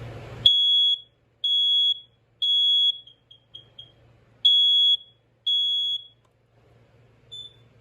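First Alert SA304 smoke alarm sounding under test: three high-pitched beeps of about half a second each, a few short broken chirps, then two more beeps and one faint chirp near the end.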